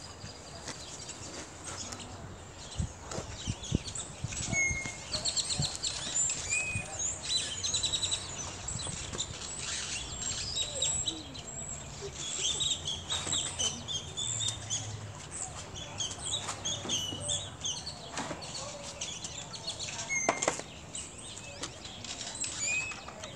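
Small birds chirping and twittering, a busy run of short high calls, with a few sharp knocks among them.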